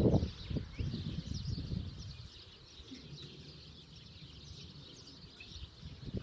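Birds chirping: a steady stream of small, high chirps, with a low rustle over the first couple of seconds that fades away.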